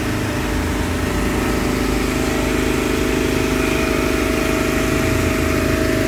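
Mobile car-wash generator engine running steadily at a constant speed: an even hum with a thin steady whine above it.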